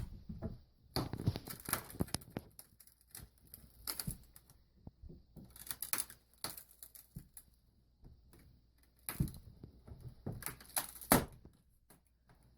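Old wooden window frame being pried apart and out of its opening: irregular bursts of cracking, splintering and clicking, with knocks, as heavily nailed wood gives way. The loudest crack comes about eleven seconds in.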